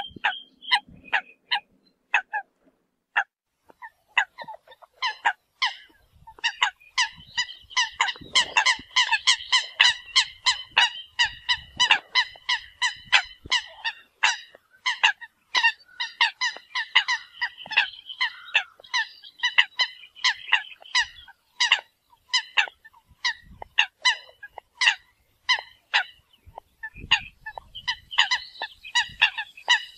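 Eurasian coots calling with many short, sharp, honking calls. The calls are sparse for the first few seconds, then become a dense stretch of overlapping calls from several birds at once.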